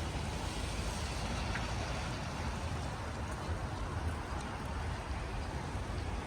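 Steady outdoor rumble and hiss of a snowy city street, with wind on the microphone and traffic noise, and no distinct events.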